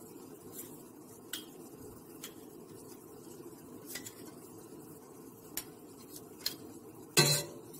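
Light metal clicks and scrapes of a kitchen knife against a garlic press over a saucepan, scattered a few per second, then one louder metal clatter near the end. A faint steady low hum runs underneath.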